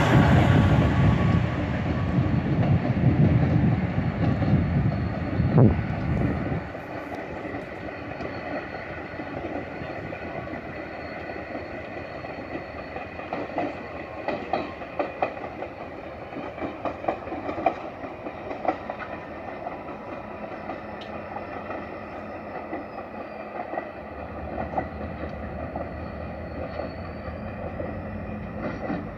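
Diesel locomotive hauling a short train of inspection cars, heard as a rumble and the click of wheels over rail joints. A heavy low rumble for the first six seconds or so drops away suddenly, leaving a fainter run of scattered wheel clicks.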